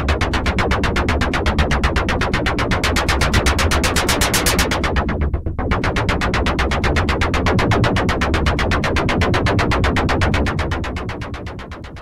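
Roland Jupiter-4 software synthesizer playing its 'PC Cave Perc' preset: a rapid, even stream of short percussive synth pulses over a steady low bass. The highs drop out briefly about five seconds in, and the sound fades away over the last second or two.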